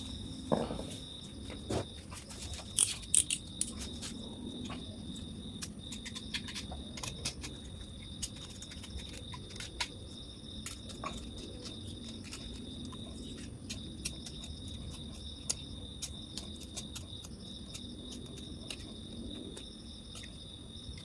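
Copper coil wire of a motorcycle stator being scraped to strip its red enamel insulation: light scattered scratches and clicks, busiest about three seconds in. A steady high-pitched tone sounds behind them.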